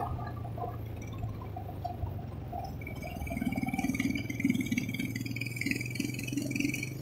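Motorcycle engine running while riding, with a steady low hum and wind on the microphone. From about three seconds in, a rougher, wavering sound joins and lasts until near the end.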